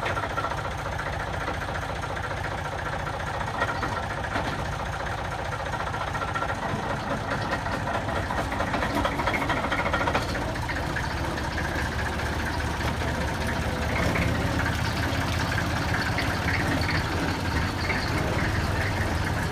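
The diesel engine of a small narrow-gauge locomotive running as it moves slowly along the track. The engine gets louder about two-thirds of the way through.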